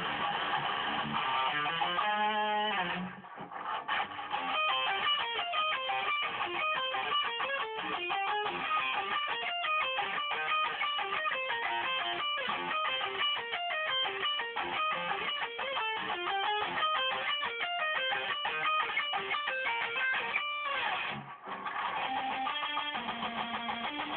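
Jackson RR24XT electric guitar played through a Line 6 Spider IV 150-watt amp: a rapid run of notes in a metal riff, breaking off briefly about 3 seconds in and again about 21 seconds in.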